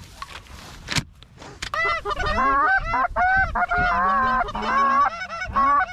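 Canada goose honks and clucks: a loud, rapid run of short calls that starts about two seconds in.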